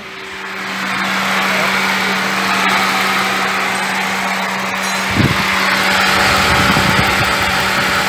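Electric radiator cooling fan of a Ford Fusion V6 running at speed with the engine idling, a steady rushing whir over a constant hum that builds over the first second. The fan is turning again after a bad contact in its module connector was worked, bringing down an overheating coolant temperature. A brief low rumble about five seconds in.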